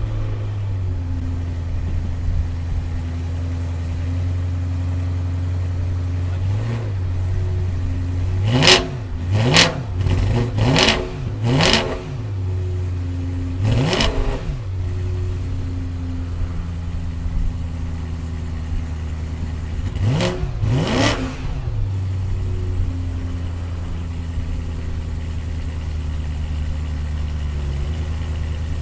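BMW E92 M3's 4.0-litre V8 idling just after a cold start, with seven short throttle blips: four in quick succession, then one, then two more close together. Each blip rises in pitch and drops straight back to idle.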